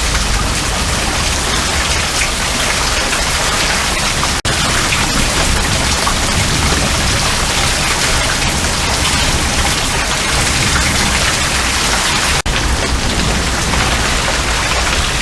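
Heavy rain pouring down steadily in a thunderstorm downpour, a dense even hiss. The sound drops out for an instant twice, about 4 s and 12 s in.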